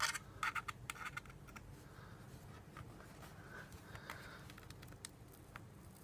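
Small metal screwdriver picking and scraping at a glued-in screw cover on the aluminium bottom case of a laptop: a quick run of sharp clicks in the first second and a half, then sparse light ticks and scratches.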